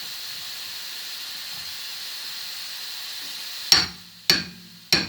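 A steady hiss, then about three and a half seconds in, three sharp metallic blows roughly half a second apart, each with a short ring: a hammer striking steel parts of a car's rear wheel hub assembly as it is tightened down.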